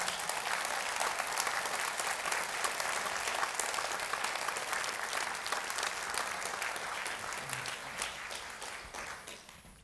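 Large audience applauding with sustained clapping that fades away near the end.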